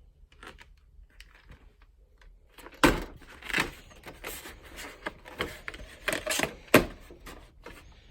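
Irregular handling clicks and knocks, with two sharp clunks about three and seven seconds in.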